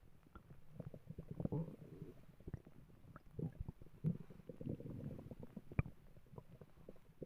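A person's stomach growling: irregular low gurgles and rumbles with many small pops and clicks, in bubbling spells about a second and a half in and again around four to five seconds in.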